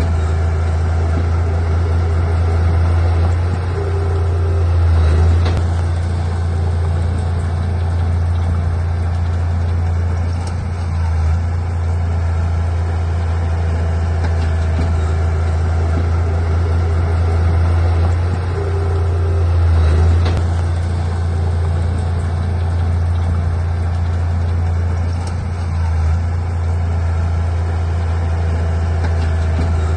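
Heavy earthmoving machine's diesel engine running steadily with a deep drone, swelling briefly a few times, about 5, 11, 20 and 25 seconds in.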